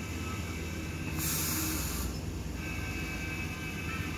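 ScotRail electric multiple-unit train running along the platform, a steady low rumble of wheels on the rails. A short burst of hiss comes about a second in, and a high steady whine joins after about two and a half seconds.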